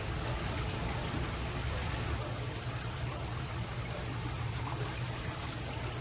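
Aquarium water trickling and bubbling steadily, with a faint steady low hum beneath it.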